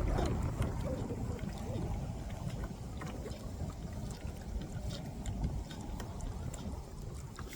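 Steady low rumble of wind on the microphone, with faint scattered clicks and knocks.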